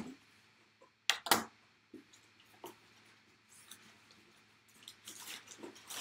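Packaging being handled and opened by hand: two sharp knocks about a second in, a few lighter clicks, then rustling near the end.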